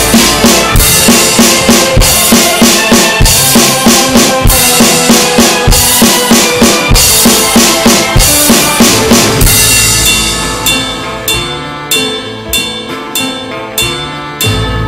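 Roland TD-11KV electronic drum kit played along to a music backing track: a driving beat of bass drum and snare at about two and a half hits a second. About two-thirds through, a cymbal crash, after which the drumming thins out and gets quieter.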